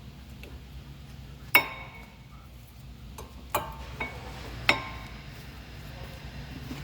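Metal tools or brake parts clinking as they are handled or set down: four sharp clinks, each with a short ring. The loudest comes about a second and a half in.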